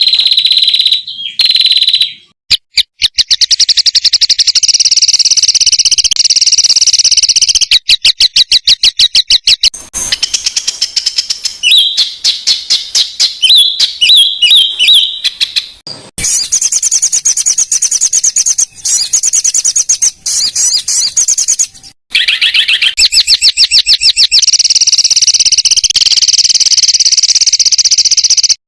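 Songbirds singing loud, high-pitched songs: fast rattling trills and rapid runs of repeated sharp notes. The song comes in separate recordings cut together, broken by abrupt short gaps, as in a training ('masteran') track for competition songbirds.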